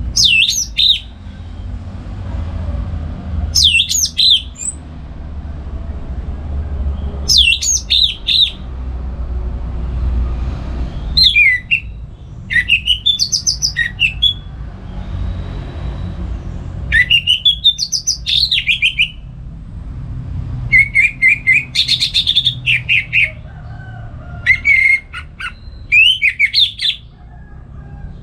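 Orange-headed thrush singing a series of loud whistled phrases a few seconds apart. The first few are short and falling; from the middle on the phrases are longer, with rapid runs of repeated notes. A steady low rumble runs underneath.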